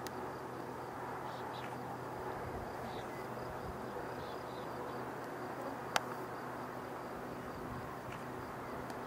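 Four jet engines of a Boeing 747SP, heard from a distance while it taxis and turns onto the runway: a steady low rumble with a faint hum. Insects chirp faintly above it, and there is one sharp click about six seconds in.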